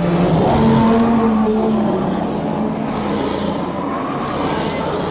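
A single drawn-out roar from a film's bear sound effect, lasting about five seconds. It is rough and raspy, with a steady low tone under it early on, and it fades away at the end. It is a designed creature roar, original and unlike any real animal's.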